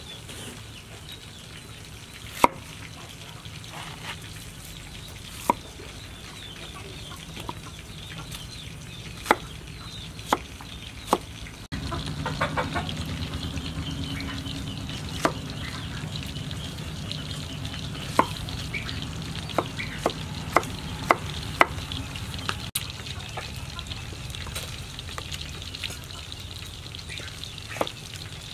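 Cleaver striking a wooden chopping board as pineapple is sliced: about a dozen sharp knocks at irregular spacing, several in quick succession past the middle, over a steady background hiss.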